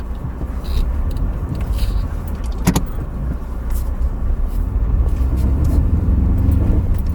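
Ford Ranger pickup driving over a rough snowy off-road trail, heard from inside the cab: a steady low engine and tyre rumble that grows louder in the second half, with scattered knocks and rattles and one sharp knock about three seconds in.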